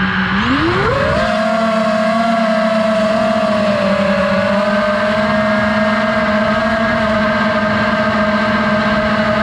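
FPV drone's brushless motors and propellers whining. The pitch climbs sharply under a second in as the throttle goes up, then holds steady with a slight waver.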